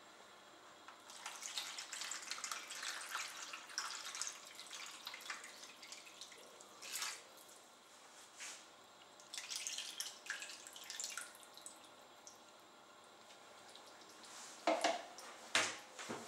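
Water splashing and trickling into a plastic tub around a whole raw chicken as the tub fills, in two runs of pouring with a pause between, then a few knocks of the tub being handled near the end.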